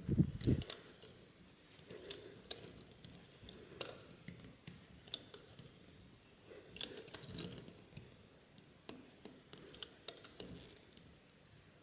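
Scattered clicks, scrapes and light knocks of hand tools and kit parts being handled during a tubeless tyre puncture repair, with a low thump about the first half-second.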